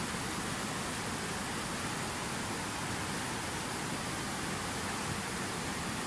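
Fast mountain river rushing through whitewater over rocks, a steady, even wash of water noise.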